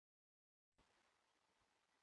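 Near silence: total silence, then about 0.7 s in a faint, steady background hiss begins.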